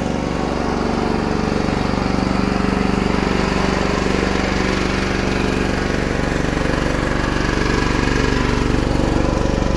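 Small portable generator engine running steadily, an even hum that holds one speed without change.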